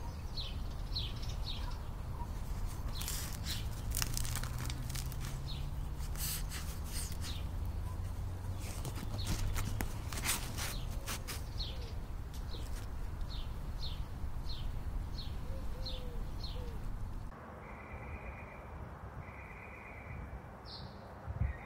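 Crusty sourdough loaf crackling as hands squeeze and handle it, in clusters of sharp crackles, while small birds chirp in short runs in the background. About three-quarters of the way in the sound drops to quieter outdoor ambience with short repeated bird calls.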